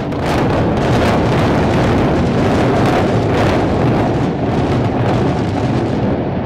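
Explosive demolition of a high-rise concrete apartment block: a loud, continuous rumble as the building comes down, broken by a string of sharp cracks in the first few seconds. The rumble eases near the end.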